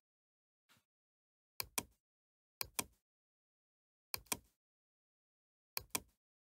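Computer mouse clicking: four pairs of short, sharp clicks, each pair a fraction of a second apart, the pairs about a second or more apart.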